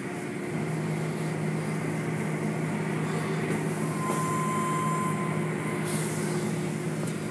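Automatic car wash machinery running: a steady motor hum with the rush of water spray and cloth strips sweeping over the car. A higher steady tone joins about four seconds in.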